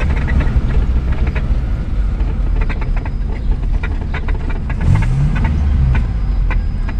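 A car driving slowly, heard from inside the cabin: a steady low engine and road rumble with scattered small rattles and knocks. The engine note rises briefly about five seconds in.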